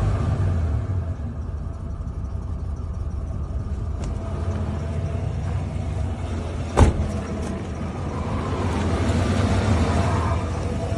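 1996 Ford Econoline 150 Club Wagon's engine idling steadily in park, with one sharp click a little under seven seconds in.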